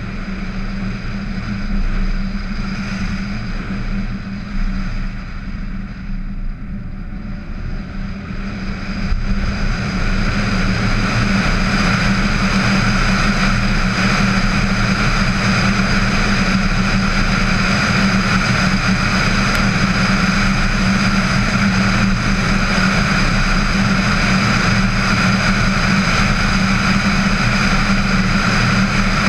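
A VW Tiguan driving along a road, heard from a camera mounted outside on the car: steady wind rush over the microphone mixed with engine and tyre noise. It grows louder about ten seconds in and then holds steady.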